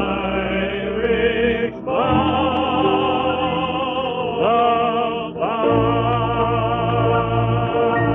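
A male crooner sings long held notes with vibrato over an orchestra, sliding up into a new note several times. The old recording sounds dull, with its treble cut off.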